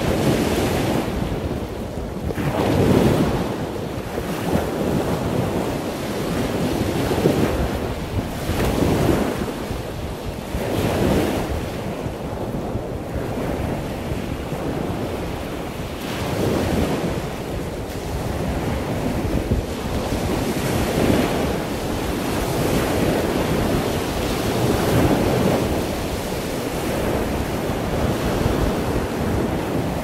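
Surf washing onto a sandy beach, the sound swelling and easing every few seconds, with wind buffeting the microphone.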